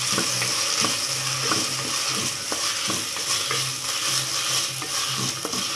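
Okra and brinjal pieces sizzling steadily in hot oil in a clay pot while a wooden spatula stirs them, giving irregular scrapes and light knocks over the hiss.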